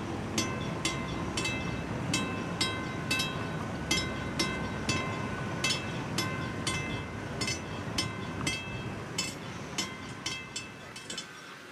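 A warning bell ringing steadily, about two sharp, ringing strikes a second, over a low rumble, growing fainter near the end.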